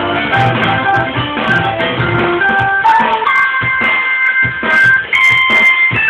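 Electronic keyboard played in a free improvisation: quick runs of notes over a low bass line, then about three seconds in the bass drops out and long held high notes sound on their own.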